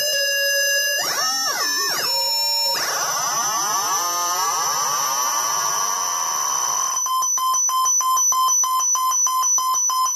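Homebuilt MFOS Echo Rockit analog synthesizer playing an electronic tone as its knobs are turned: about a second in the pitch swoops up and down, then a tangle of sliding, falling tones spreads out and settles, and from about seven seconds the tone pulses rapidly on and off.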